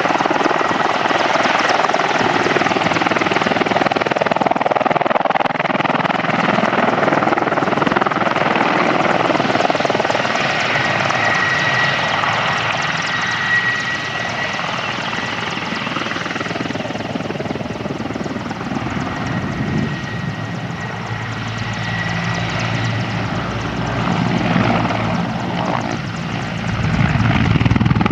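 Mi-24 attack helicopter in display flight: the running noise of its twin turboshaft engines and rotor, with a thin high turbine whine that comes and goes. The sound dips in the middle and grows louder again near the end, when a low rotor beat comes through.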